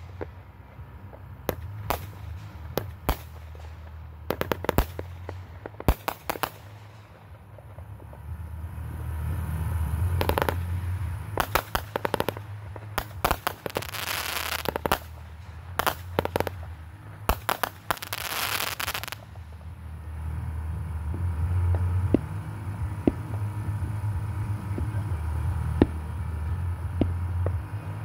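Aerial fireworks in a finale barrage: shells bursting in rapid, sharp bangs with stretches of crackling. The barrage thins to a few scattered pops over the last third.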